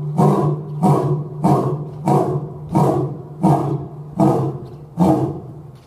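Male lion roaring: a bout of about eight short, grunting calls, roughly one every 0.7 s, spaced slightly wider as it goes on and fading on the last one.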